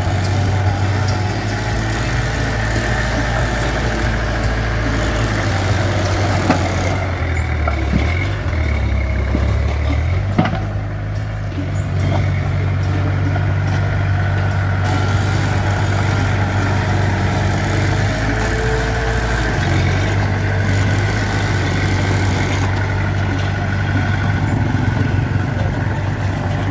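Mitsubishi BD2F bulldozer's diesel engine running steadily as it works, its low drone shifting in pitch a few times, with a couple of sharp knocks.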